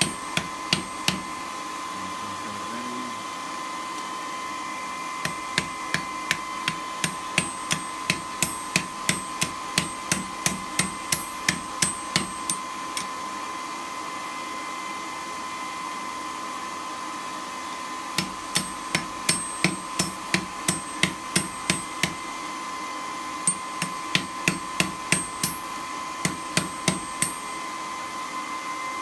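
Hand hammer striking hot steel on an anvil, about two blows a second in three runs with short pauses between. The smith is upsetting the end of an annealed file to thicken it.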